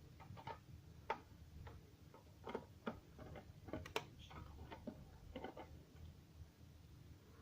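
Faint, irregular light clicks and taps of hand tools and small bike parts being handled while a bolt is fitted loosely during bike assembly.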